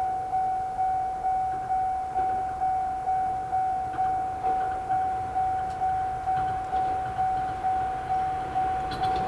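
Japanese level-crossing electronic warning bell of the JR Central type, one pitched ding repeating a little over twice a second, each dying away before the next: the crossing is warning that a train is approaching.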